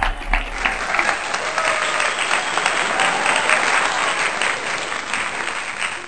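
Crowd applauding, a dense clatter of many hands clapping that tapers off near the end.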